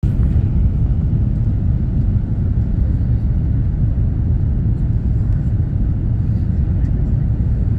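Steady low rumble of an Airbus A330-200's engines and rushing airflow, heard inside the passenger cabin on final approach to landing.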